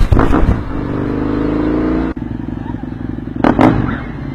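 Husqvarna Nuda 900R's 900 cc parallel-twin engine through its exhaust. It starts with sharp bangs, holds a rev whose pitch rises slightly, then drops abruptly at about two seconds to a lumpy, pulsing idle. Two sharp exhaust pops come a little past three seconds in.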